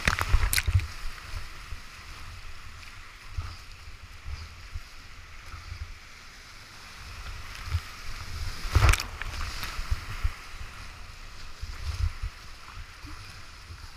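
Whitewater rapids rushing around a kayak, with paddle strokes and splashes up close and irregular low thumping on the microphone. A loud splash comes about nine seconds in.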